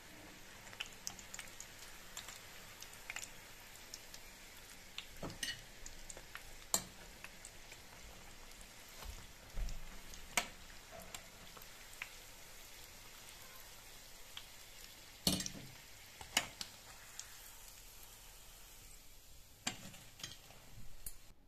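Breaded potato croquettes deep-frying in vegetable oil: a steady sizzle with scattered crackles and pops. A few sharper clicks stand out, one as metal tongs lift a croquette about ten seconds in.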